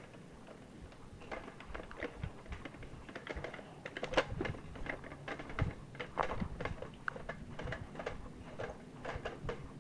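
Light footsteps with small clicks and rustles from someone moving about on foot, an irregular run of taps that gets busier about four seconds in.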